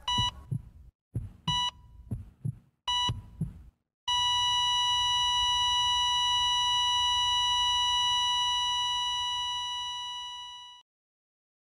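Heart-monitor sound effect: three beeps about a second and a half apart with heartbeat thumps between them. Then a long steady flatline tone comes in about four seconds in, fades, and cuts off, signalling that the heart has stopped.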